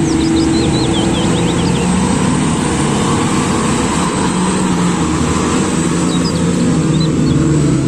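Komatsu HD785 rigid mining haul truck driving past, its big diesel engine running steadily under heavy load, with the rumble of the huge tyres on the gravel haul road. A few faint high chirps sound about a second in and again near six seconds.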